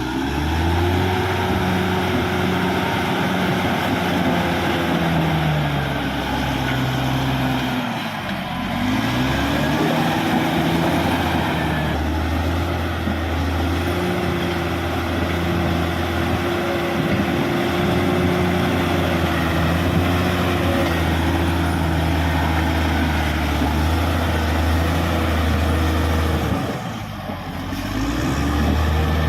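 Caterpillar D6R XL bulldozer's diesel engine working, its revs rising and falling. The engine note dips briefly about eight seconds in and again near the end.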